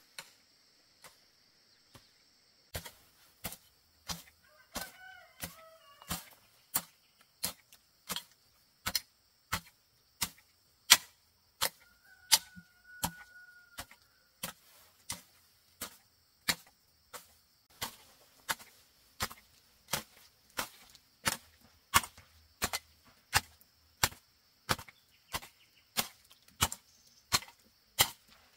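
Steady chopping: a blade striking bamboo over and over, about one and a half strokes a second, getting going about three seconds in. A bird calls twice, over a steady high hiss.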